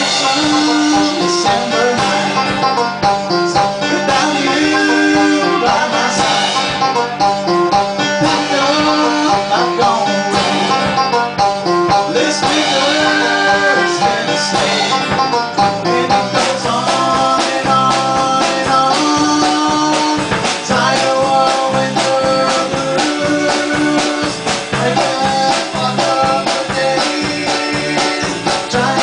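A small band playing a country-style song on acoustic and electric guitars, with a voice singing.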